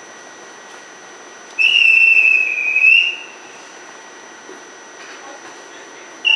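A single shrill whistle blast lasting about a second and a half, starting about one and a half seconds in, its pitch dipping slightly and then rising. It is typical of a conductor's departure whistle for a train standing at the platform.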